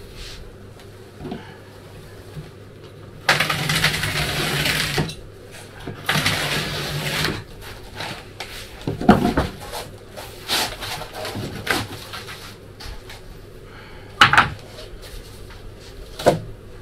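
Utility knife drawn through a sheet of self-adhesive polyethylene foam along a spirit level. There are two long cutting strokes a few seconds in, then several sharp knocks and clicks as the tools and the cut foam are handled on the wooden bench.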